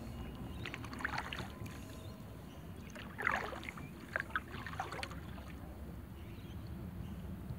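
Kayak paddle strokes dipping and splashing in calm water, several short splashes over the first five seconds, over a steady low rumble.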